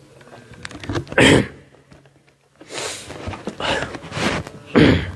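Rustling and handling noise close to a handheld microphone: short loud bursts about a second in and near the end, with a longer stretch of hiss in between.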